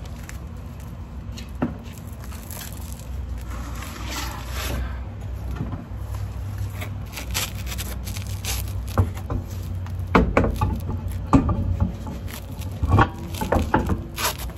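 Car wheel and tyre being lifted into place and fitted onto the hub's wheel studs: scraping and handling noise, with several sharp knocks of the rim against the hub and studs in the second half.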